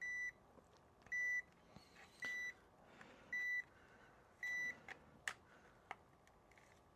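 Power supply tester beeping: five short, high, identical beeps about a second apart, its alarm for a missing CPU 12V2 rail. The beeping then stops, and two sharp clicks follow.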